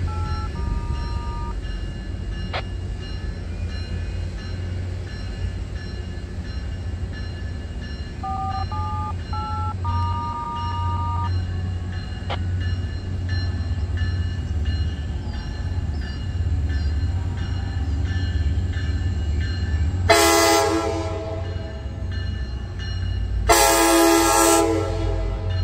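Tri-Rail commuter train's horn sounding two blasts as the train approaches, the first about a second long and the second about a second and a half, both near the end, over a steady low rumble. Earlier a short electronic chime tune plays twice.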